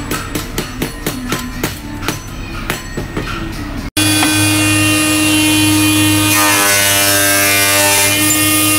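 A quick, irregular run of clicks and knocks, then after an abrupt cut a loud, steady machine whine with a strong hum and hiss from a woodworking machine's spinning cutter head working a wooden board. The whine's tone shifts for a couple of seconds near the middle.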